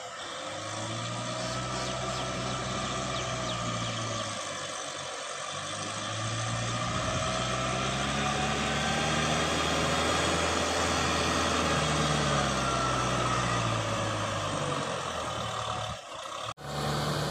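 Kubota M6040SU tractor's four-cylinder diesel engine running under working load, its pitch slowly rising and falling as the load changes. The sound drops out abruptly for a moment near the end.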